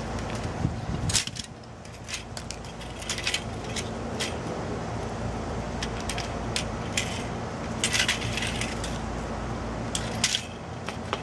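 Scattered metallic clicks and clinks of small printer metal parts and a motor being pried and pulled apart with pliers, some in quick clusters, over a steady low hum.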